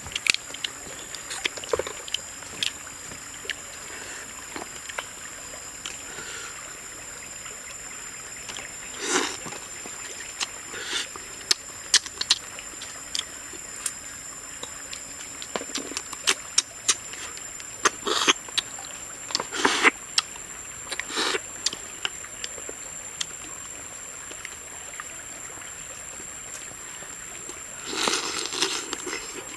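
Eating boiled snails and crabs by hand: many sharp clicks and cracks of shell as the meat is picked out, with a few louder sucking slurps of about a second as snail meat is drawn from the shell, one near the end. A steady high-pitched whine runs behind.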